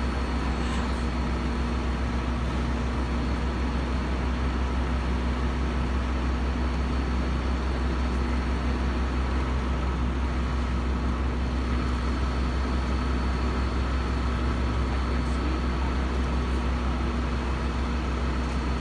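Fire engine's motor running steadily at the fire scene: a constant low drone with a steady hum over it, unchanging throughout.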